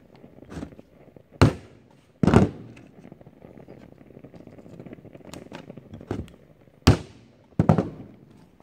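Small hammer knocking tacks into new wooden planking on a wood-and-canvas canoe hull: about half a dozen sharp, irregular knocks, the four loudest in two pairs, with fainter taps between.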